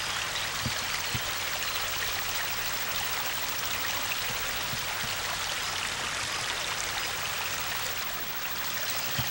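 A flowing brook: a steady, even rush of running water.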